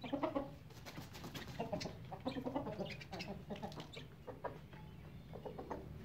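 A flock of hens and roosters clucking as they feed, in many short calls one after another, with sharp ticks mixed in.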